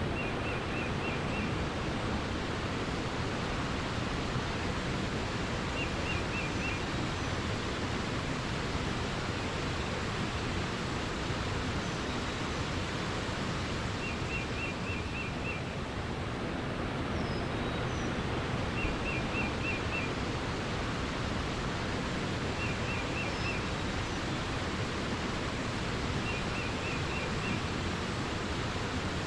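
Steady rush of flowing water. Over it, a bird sings a short run of four to six quick, even notes six times, every few seconds, with a few faint higher chirps between.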